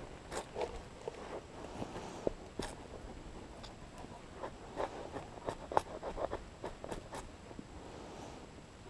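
Pitch-soaked wood being broken and pulled into strips by hand from an old rotted stump: an irregular run of snaps, cracks and scraping, busiest from about halfway through until near the end.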